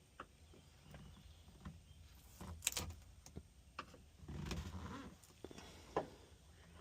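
Faint intermittent scraping and clicking as factory sound deadening mat is worked off a car body panel. The mat is stubborn and coming away slowly, leaving residue. There is a sharper scrape nearly three seconds in and a rougher run of scraping about four and a half seconds in.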